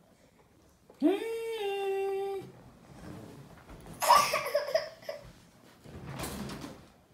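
A toddler's voice: one long held "aaah" lasting over a second, its pitch settling slightly lower, followed a couple of seconds later by a short breathy laugh-like vocal sound.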